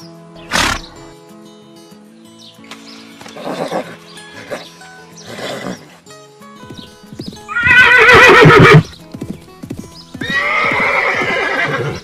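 Horses neighing: two long whinnies with a quavering pitch, the first and loudest about seven and a half seconds in, the second about ten seconds in. Shorter bursts come earlier, one sharp one about half a second in. Soft background music plays underneath.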